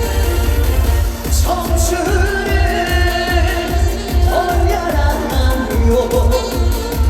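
Live trot song: a steady, even bass beat under a wavering melody line that comes in about a second and a half in.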